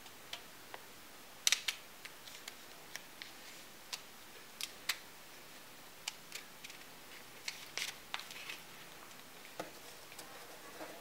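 Origami paper gun being handled and reloaded by hand: scattered crisp clicks and crinkles of stiff folded paper, irregular, with the loudest cluster about a second and a half in.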